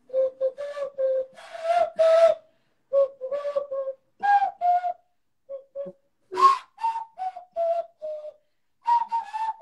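Hand flute: air blown into cupped hands, playing a simple tune of short whistle-like notes that step up and down, in several phrases with short pauses.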